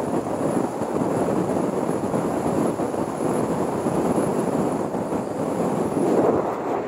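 Wind rushing and buffeting over the microphone of a camera mounted outside a car moving at highway speed, mixed with steady road and tyre noise. It swells briefly about six seconds in.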